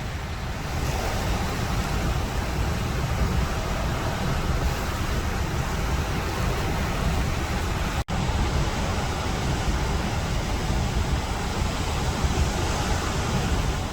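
Strong gusty wind buffeting the microphone with a low, fluttering rumble, over a steady rush of ocean surf. The sound drops out for an instant about eight seconds in.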